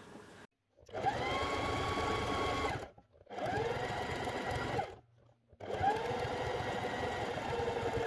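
Electric sewing machine stitching in three bursts with short gaps between, top-stitching through layers of cotton fabric and cotton batting. The motor whine rises in pitch as each burst gets up to speed, over a rapid needle rattle.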